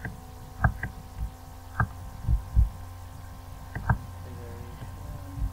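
Steady low electrical hum, with about half a dozen sharp computer-mouse clicks and several soft, dull thumps scattered through. The loudest thump comes about two and a half seconds in.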